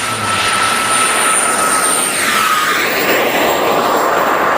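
Airplane flying past: a steady rushing engine noise with a thin whine that drops in pitch a little past halfway, as the plane passes.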